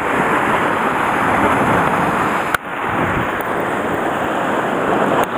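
Surf washing against a rocky shore with wind buffeting the microphone, a steady rushing noise. A single sharp click cuts through it about two and a half seconds in.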